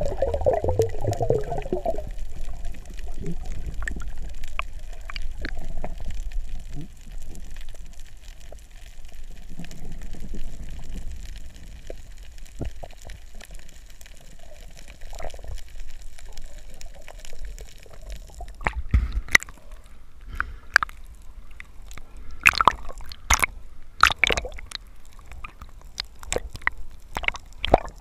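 Muffled underwater sound from a camera held below the surface: low rumbling water with bubbling and gurgling, strongest in a burst during the first couple of seconds. From about two-thirds of the way through, sharp irregular clicks and knocks join in.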